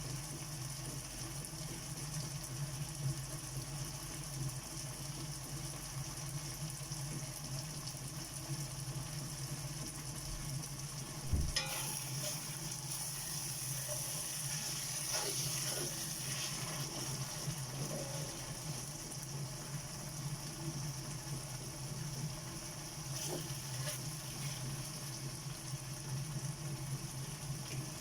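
Tomatoes sautéing in oil in a pan, sizzling steadily, with a knock of a utensil against the pan about eleven seconds in and a few faint scrapes after it.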